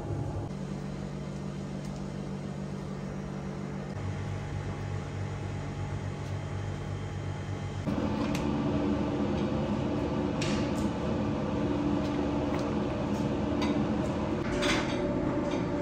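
Steady hum of kitchen machinery such as fans or refrigeration, with a change in its pitch and a rise in level about halfway through. Over it in the second half come scattered light clicks and clatters of meat being handled on a metal tray.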